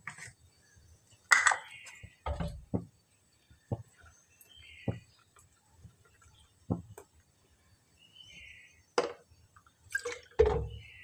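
A string of separate knocks and clinks, about eight spread across several seconds, from kitchen utensils and containers being handled and set down on a stone counter.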